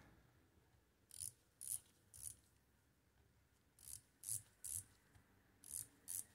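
Small bit ratchet clicking faintly as it is swung back between turns, in groups of about three clicks roughly every two seconds, while it works a screw out of the numbering stamp.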